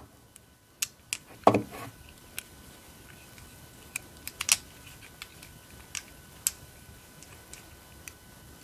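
Small metal tools clicking and tapping on a lock cylinder as a grub screw is worked out of a pin chamber: scattered light clicks, with one duller knock about a second and a half in.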